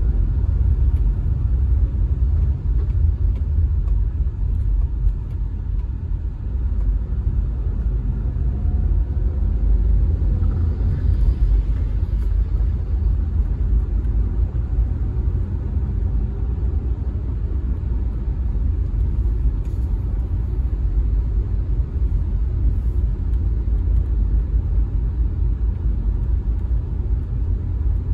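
Car driving along: a steady low rumble of road and engine noise.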